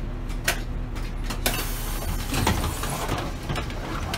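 Inside a city bus: the engine's low, steady rumble, with sharp clicks about a second apart in the first half, rattling in the second half and a thump at the very end.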